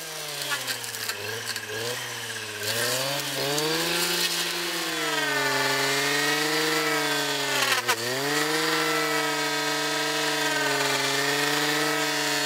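Stihl brush cutter's two-stroke engine running under load in undergrowth. It revs up about three seconds in and holds at high speed, with a brief dip just before eight seconds.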